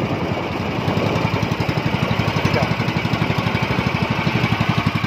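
Outrigger fishing boat's engine running steadily under way, a fast, even chugging.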